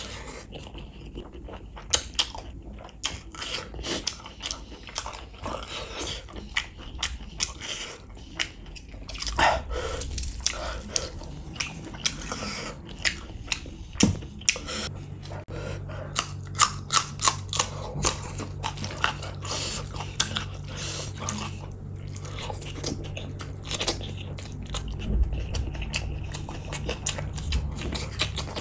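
Wet chewing and lip smacking with many sharp clicks, as mouthfuls of gravy-soaked rice and bamboo shoot are eaten by hand.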